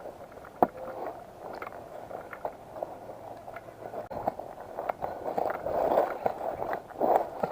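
Rustling and scuffing with scattered sharp clicks; one loud click comes about half a second in.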